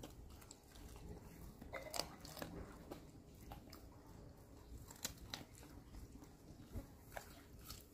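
Dog chewing boiled chicken, with a few sharp crunches, the loudest about two seconds in.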